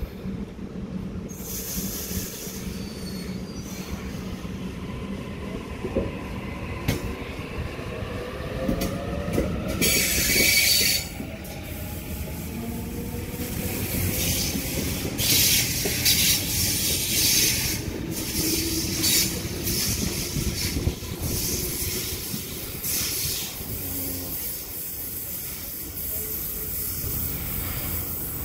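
Sydney Trains electric suburban train pulling out of the platform: its traction motors whine, rising in pitch as it gathers speed. From about a third of the way in, the wheels squeal in repeated high bursts as the carriages roll past.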